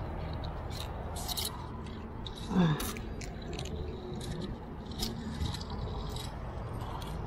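Metal climbing gear on a harness rack, carabiners and cams, clinking and jangling in scattered clicks as the climber moves, over a steady low rumble. About two and a half seconds in, a brief loud sound slides down in pitch.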